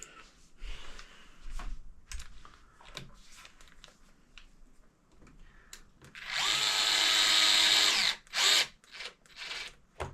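A power drill-driver runs once for about two seconds, then gives a few short bursts, driving a screw home during the servo mock-up. Light handling clicks and taps come before it.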